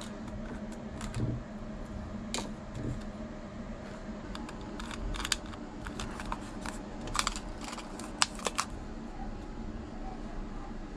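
Small sharp clicks and scrapes of a precision screwdriver on a Sony cassette Walkman's casing as the case is being opened, with quick clusters of ticks in the second half. A steady low hum runs underneath.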